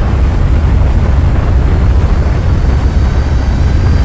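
Loud, steady rush of wind and engine noise outside an Airbus A400M turboprop transport plane climbing after takeoff, with a deep rumble of wind buffeting the microphone.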